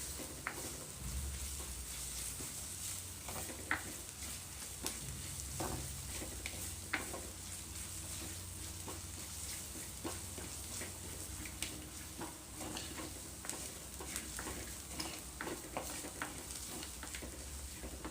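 Ground spice paste sautéing in hot oil in a clay pot, sizzling steadily while it is stirred, with scattered light clicks and taps of the stirring utensil against the pot.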